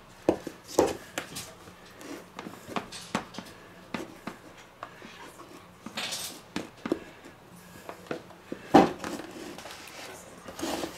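Plastic dough tub knocked and rubbed against a wooden cutting board while a sticky pizza dough ball is scraped out of it with a hand scraper: irregular knocks and scraping, with a loud knock about nine seconds in.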